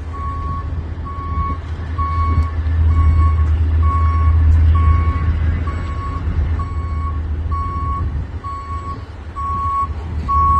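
A truck's reversing alarm beeping steadily, about once a second, over a low rumble that swells for a couple of seconds in the middle.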